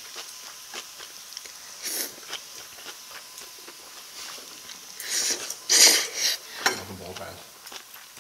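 Close-miked slurping of spicy cold noodles with young radish kimchi sucked up from chopsticks, loudest about two seconds in and again from about five to six seconds in, with small wet mouth clicks of chewing between.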